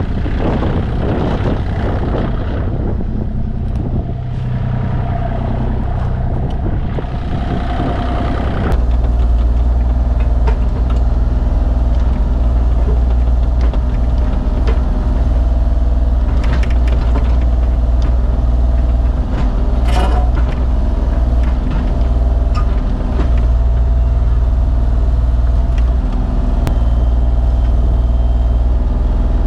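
Engine of a digging machine running under load while it digs out fill to load a truck. It gets louder and heavier about nine seconds in, and a few metal clanks sound around the middle.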